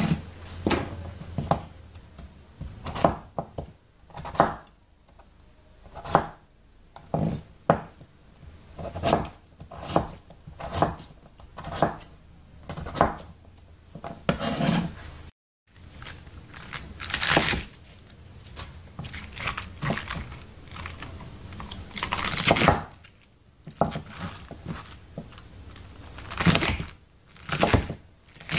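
Kitchen knife cutting white radish on a wooden cutting board: irregular knocks of the blade hitting the board, with now and then a longer scraping or rustling as the pieces are pushed and handled. Near the end it is napa cabbage leaves being cut. The sound drops out briefly about halfway.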